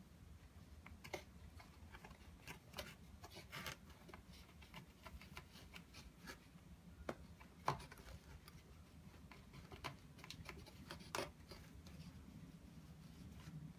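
Faint scattered rustles and light taps as a cat paws at a feather teaser wand sticking out of a hole in a cardboard play box. The sharpest tap comes a little past halfway, with a second cluster of taps near the end.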